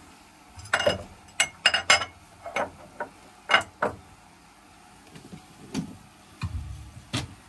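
Irregular sharp metallic clicks and taps as parts and fittings of a Kelvin K2 marine diesel engine are handled while it is prepared for starting; the engine is not running.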